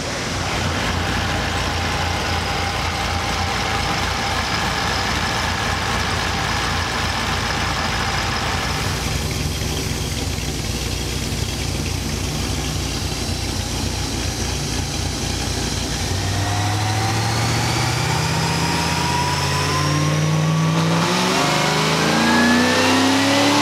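A car's V8 engine running steadily, then revving up for its last several seconds, the pitch climbing in steps and growing louder before it cuts off.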